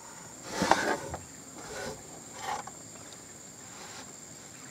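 Steady high-pitched insect drone. A short burst of handling or rustling noise about half a second to a second in, and fainter ones around two seconds.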